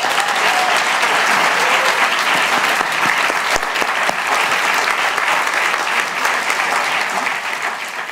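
Audience applauding, a dense clatter of many hands clapping that begins to fade near the end.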